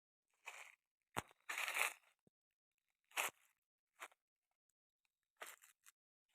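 Several short crinkling, crackling rustles, as of plastic or fabric being handled, with a sharp click just after a second in; the longest and loudest rustle comes just after it.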